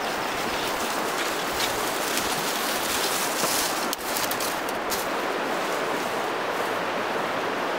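River rapids rushing steadily. In the first half, footsteps crunch over dry leaf litter and long branches drag along the ground.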